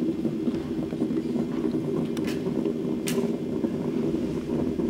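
A steady low drone, with a couple of sharp clicks a little after two seconds and again about three seconds in.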